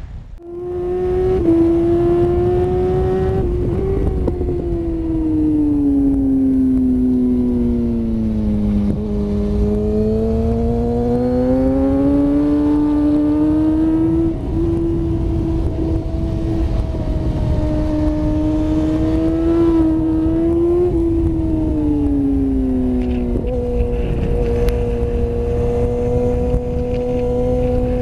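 Tuned Kawasaki ZX-10R's inline-four engine at racing speed, its note climbing and falling as the rider works the throttle, brakes and shifts gears, with steady wind rush.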